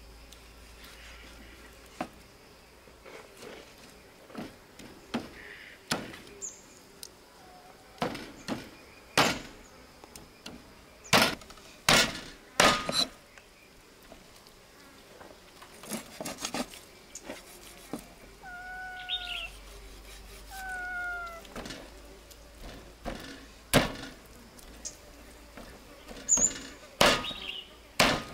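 Cleaver chopping through pork bones on a round wooden chopping block: sharp chops at irregular intervals, some in quick runs. Two short bird calls about two-thirds of the way through.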